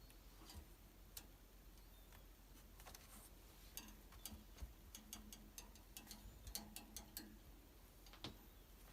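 Faint, irregular light clicks and taps from kittens playing with a cat-teaser wand, most of them in a quick cluster from about four to seven seconds in.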